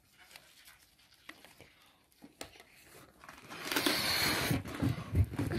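Rustling and rubbing noise with a few soft clicks, faint at first and louder from about three seconds in, with some dull low bumps near the end.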